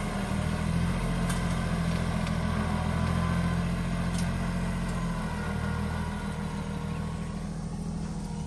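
Yanmar Ke-3 compact tractor's diesel engine running steadily as it pulls a tined cultivator through weedy soil, a little fainter toward the end.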